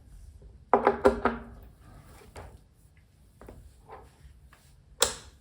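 Handling noise as an XLR cable is moved over to a studio monitor: two sharp knocks with a short ring about a second in, a few faint clicks, and another sharp click near the end.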